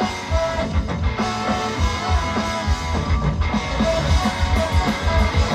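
Live punk-ska band playing an instrumental passage: electric guitars and a drum kit with a steady beat, loud and full, with no vocals.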